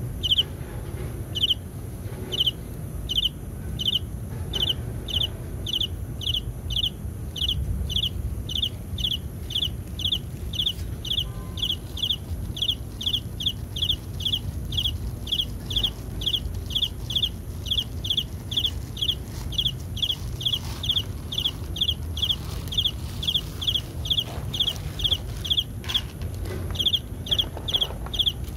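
A high chirp repeating steadily about twice a second, with a low rumble underneath.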